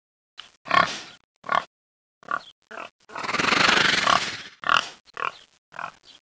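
Wild boar grunts and squeals: a string of short calls, with one long, harsh squeal lasting about a second and a half from about three seconds in, then more short grunts.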